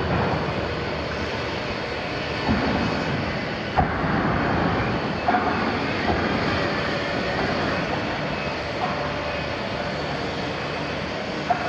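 Liebherr 974 demolition excavator's diesel engine running steadily under hydraulic load as the machine swings and lowers its long-reach boom with demolition shears. A few sharp clanks stand out over the engine.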